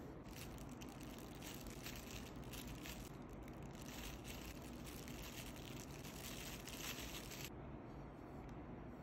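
Thin plastic crinkling and rustling in a quick run of small crackles, which stops abruptly about a second and a half before the end.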